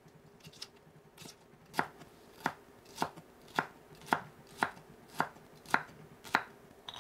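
Kitchen knife chopping green bell pepper on a wooden cutting board: a few light cuts at first, then from about two seconds in a steady run of about nine sharp knocks of the blade on the board, roughly two a second.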